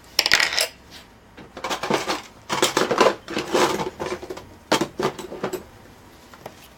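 Small metal laptop parts and tools clinking and rattling as they are handled and set down on a work surface, in four short bursts of clatter.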